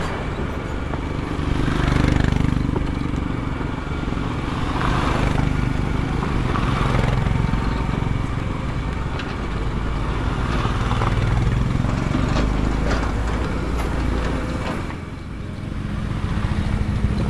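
Motorcycle engine running steadily over a rough, broken road. A rushing noise swells and fades every second or two, with scattered knocks and rattles from the bumps.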